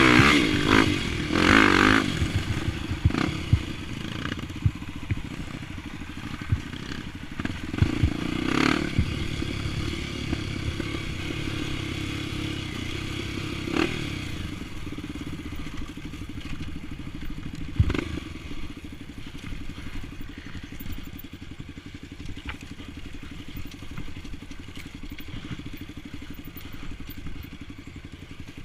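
Honda XR 250 Tornado trail bike's single-cylinder engine, bored to 280cc, running at low steady revs after a louder burst of revving in the first two seconds, with scattered knocks and clatter.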